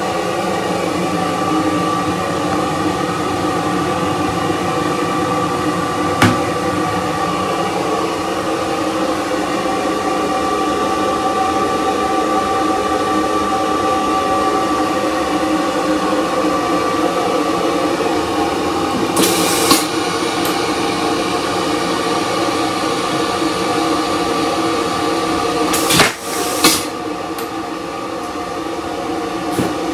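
Steady hum of the standing JR West 273 series train's equipment inside its toilet cubicle, with a single click about six seconds in and a short hiss a little before two-thirds through. Two sharp, loud bursts about 26 seconds in are the vacuum toilet's flush.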